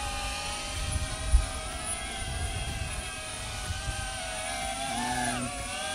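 Small FPV drone's motors and propellers whining steadily as it flies low and slow, the pitch dipping and recovering about five seconds in. A short low thump about a second and a half in.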